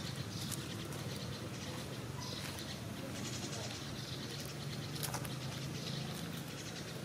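Outdoor background with faint, short, high-pitched animal calls repeating every half second to a second over a steady low hum.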